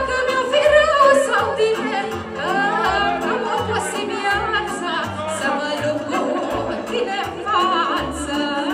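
Live folk song played through a PA: a woman singing ornamented, wavering lines into a microphone over electronic keyboard accompaniment with a steady bass beat.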